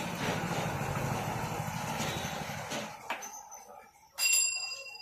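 A motor vehicle's engine running nearby, fading out after about three seconds. About four seconds in, a sharp metallic clink that rings on briefly in a few high tones.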